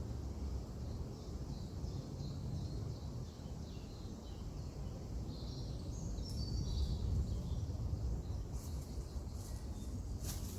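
Small birds chirping and tweeting over a steady low outdoor rumble, with a cluster of quick high notes in the middle and a run of sharp high ticks near the end.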